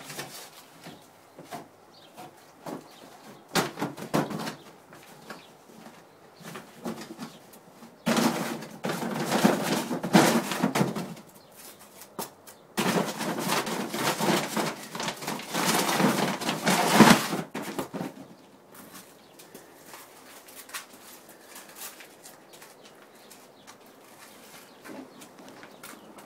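Collapsible nylon pop-up bin being nosed and pawed by a horse: scattered taps and knocks, then two long spells of loud fabric rustling and flapping, each several seconds long, in the middle of the stretch.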